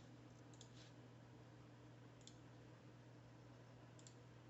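Near silence: room tone with a steady low hum and a few faint, sharp clicks spread through it.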